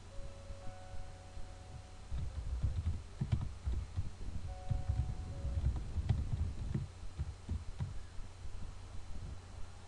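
Computer keyboard typing: irregular keystrokes heard mostly as dull low thumps with light clicks, starting about two seconds in and easing off after about seven seconds.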